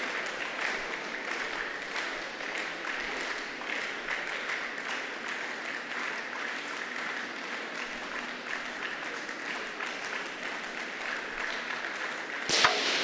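Steady crowd noise from spectators, with scattered clapping. Near the end comes a single sharp crack of a .22 free-pistol shot.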